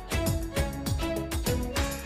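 Background music with a steady beat and a melody.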